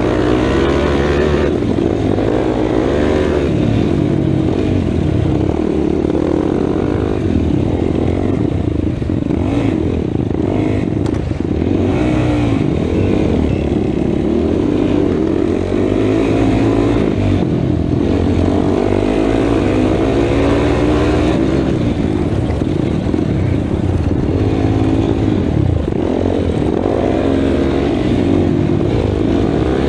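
Racing ATV engine running hard under load, its pitch rising and falling over and over as the rider accelerates, shifts and backs off.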